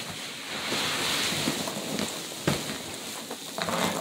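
Biodegradable packing peanuts and cardboard rustling as a hand digs through a shipping box, with a couple of sharp knocks past halfway and near the end.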